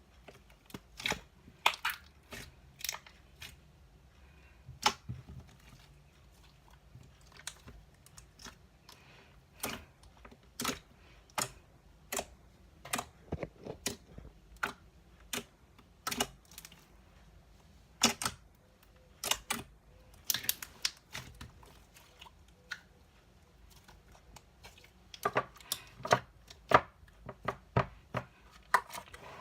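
Homemade slime being squished and poked by hand, giving irregular sharp pops and clicks about one or two a second, busier in two stretches later on.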